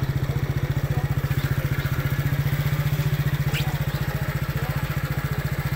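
Small motorcycle engine running at a steady cruising speed, an even low pulsing that holds throughout, heard from the rider's seat.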